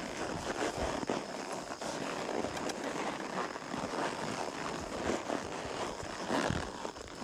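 A ridden horse moving along a trail: irregular hoof falls and rustling, with bouts of low rumbling noise.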